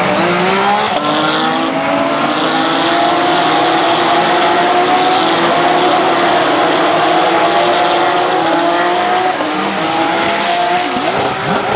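A pack of Porsche 911 racing cars, several flat-six engines running hard together and slowly climbing in pitch as they accelerate. Near the end a hiss comes in as one car runs wide through the gravel trap.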